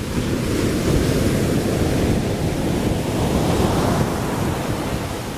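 Small waves washing at the water's edge, with wind rumbling on the microphone.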